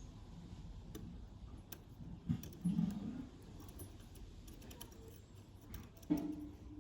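Small metallic clicks and ticks of a Lishi pick working the pins inside an LW4 door lock, scattered at irregular intervals as each pin is probed for binding. A couple of louder, duller handling sounds come about two and a half seconds in and again near the end.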